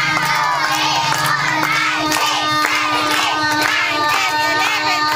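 A crowd of children cheering and shouting over and over, over a steady held tone.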